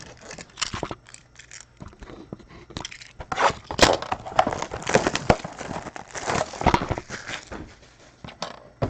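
Trading-card pack wrappers being torn open and crinkled by hand, in irregular bursts of rustling and crackling.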